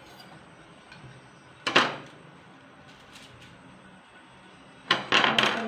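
Handling noises as a whole tilapia is cut and turned over on a sheet of aluminium foil: a short, sharp clatter about two seconds in, and a longer rustling, crackling burst near the end.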